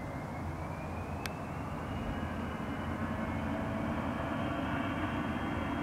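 Jet engines of a CRJ-200 (twin CF34 turbofans) at takeoff power: a whine rises in pitch over the first few seconds and then holds, over a low rumble that grows steadily louder. A single sharp tick about a second in.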